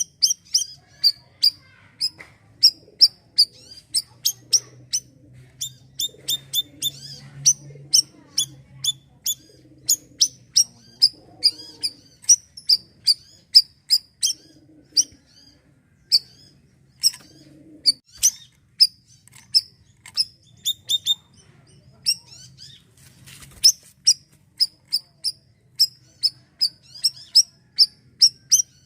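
Bayeman (siri-siri) songbird calling in full 'gacor' form: a long run of short, sharp, high chirps, about two or three a second, broken by a few brief pauses.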